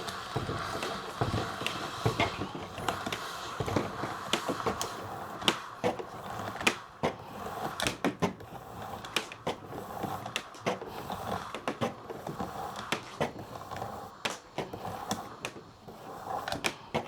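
Uhlmann fencing reel being handled as its cable is pulled out to wind up a newly fitted spring: an irregular run of clicks and knocks from the reel's parts turning and shifting.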